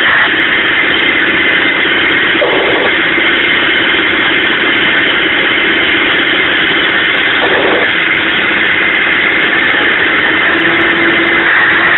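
Mack dump truck's diesel engine running steadily under load, hauling about 17 tons uphill, heard from inside the cab as a loud, even drone.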